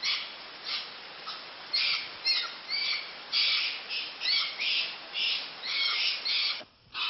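Harsh squawking animal calls, repeated over and over at one or two a second, some with short rising and falling notes, cutting off suddenly near the end.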